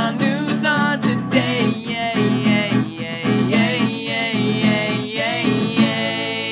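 Theme song on strummed acoustic guitar with a singing voice, ending on a long held sung note near the end.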